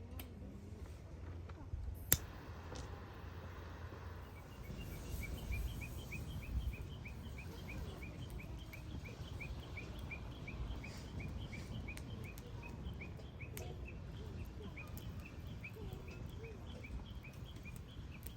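A bird calling in a long, even series of short high chirps, about three a second, starting about four seconds in, over a low steady rumble of outdoor noise. A single sharp click comes about two seconds in.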